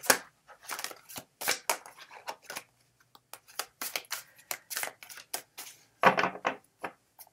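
A deck of stiff tarot cards being shuffled hand over hand: a quick, uneven run of card flicks and slaps, with a louder clatter about six seconds in.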